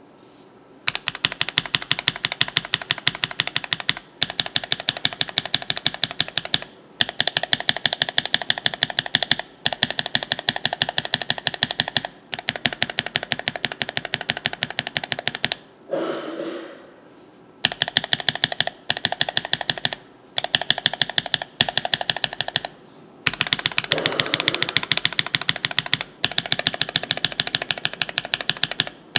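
Mechanical keyboard switches in an acrylic switch tester pressed rapidly, each key bottoming out with a click, in runs of a few seconds with short pauses between them. The switches are frankenswitches of cream POM stems and Cherry black and other housings, compared for pitch from higher to deeper.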